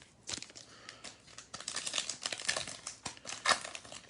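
Trading-card pack wrapper crinkling as it is handled and opened, a rapid run of small crackles and rustles.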